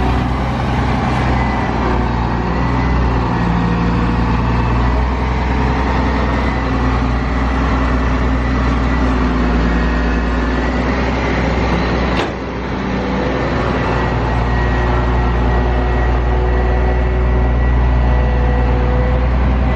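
Steady, loud car engine and road noise from a vehicle driving along, with a brief click about twelve seconds in.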